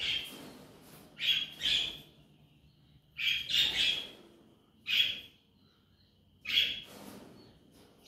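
Baby rosy-faced lovebird giving short, sharp begging chirps in little clusters every second or so while it eats porridge off a spoon.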